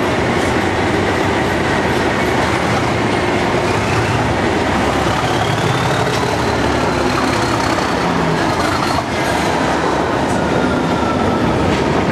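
English Electric Class 37 diesel locomotive, with its V12 engine, running past close by and pulling its coaches through the platform. The wheels clatter on the rails, and a thin high whine rises through the middle of the pass.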